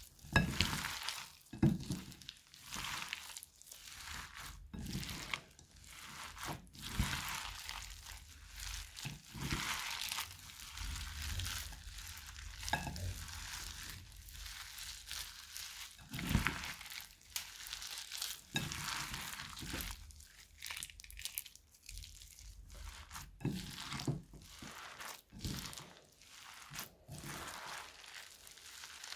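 Crunchy slime mixed with plastic bag pieces and foam brick bits being squeezed and pressed by hand: irregular crinkling, crackling squishes every second or two.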